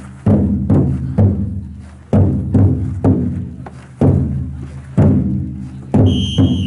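Large taiko drum inside a futon-daiko festival float struck hard in a steady rhythm, about two booms a second, each ringing on deep and decaying before the next. A short high whistle sounds near the end.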